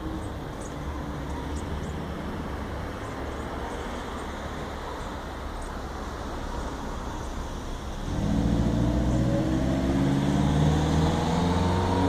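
Road traffic: a motor vehicle's engine running, growing louder about eight seconds in with its pitch rising steadily as it accelerates. Faint short high bird chirps come through in the first half.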